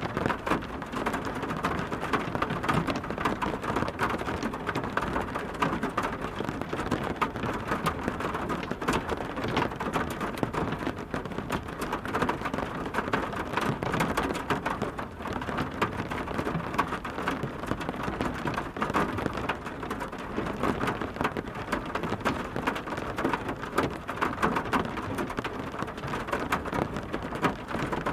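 Steady rainstorm: rain falling hard on a surface, a dense patter of individual drops over a constant wash.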